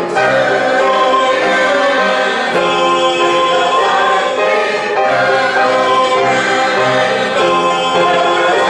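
A choir singing a sacred cantata, with sustained chords at a steady, full volume.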